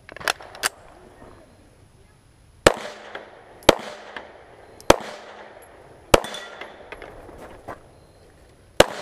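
Pistol shots: two lighter cracks in the first second, then five loud shots spaced about one to two and a half seconds apart, each echoing after it, with a few fainter cracks in between.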